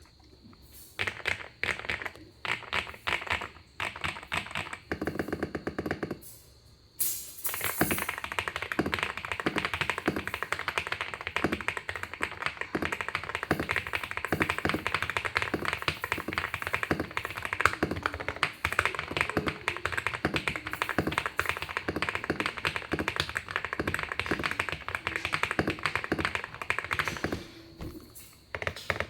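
Mechanical keyboard with lubed Akko V3 Cream Yellow linear switches being typed on: separate keystrokes and short runs at first, a short fast rattle about five seconds in, then about twenty seconds of fast continuous typing.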